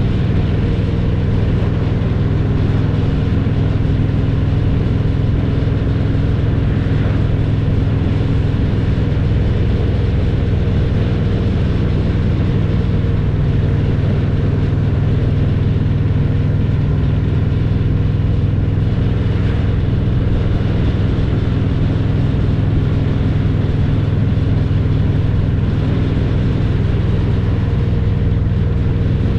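Harley-Davidson Road Glide Special's Milwaukee-Eight 114 V-twin running through Vance & Hines Power Duals headers and Cobra Neighbor Hater slip-on mufflers, holding a steady, loud note while riding.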